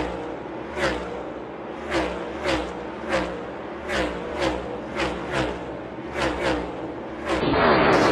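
NASCAR Next Gen stock cars with pushrod V8 engines passing one after another at race speed, each car a quick rise and fall, about a dozen in seven seconds. Near the end the sound cuts to louder, continuous engine noise at full throttle.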